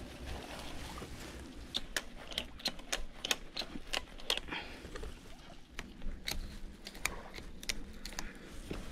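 Ratchet lashing strap being tightened: a long run of sharp, irregular metal clicks, some in quick bursts, over rustling of fabric and leaves.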